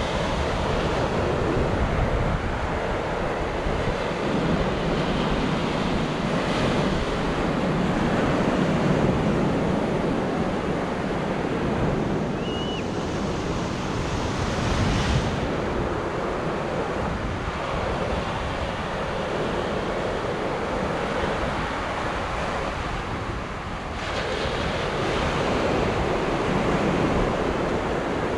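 Surf breaking and washing up on a sandy beach in swells, with wind buffeting the microphone. A brief high chirp comes about halfway through.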